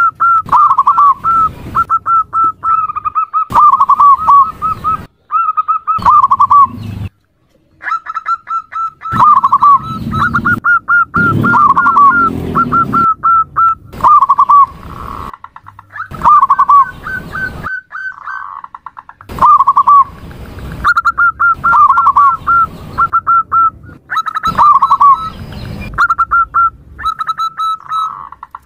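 Female zebra dove (perkutut) calling: rapid phrases of short, repeated cooing notes, many dipping slightly in pitch, separated by brief pauses.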